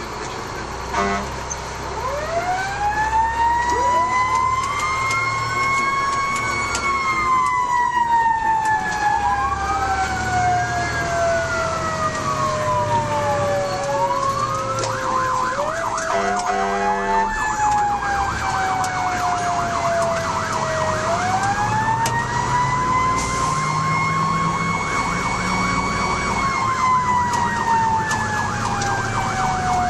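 Fire engine sirens heard from inside the cab while responding. One siren winds slowly up and slowly back down twice. Another wails up and down and then switches to a rapid yelp about halfway through, over the truck's engine and road rumble.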